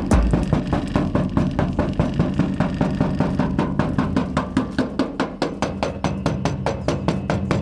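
Background music with a fast, even percussive beat over a steady bass line.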